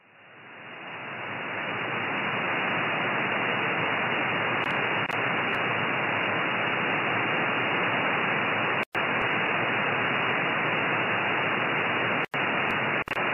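Steady hiss of an RTL-SDR receiver in upper-sideband mode on the 13 cm band with no station transmitting: band noise through the narrow SSB filter. It swells up over the first two seconds as the receiver's slow AGC brings the gain back up after the strong signal stops, then holds steady, cutting out briefly twice.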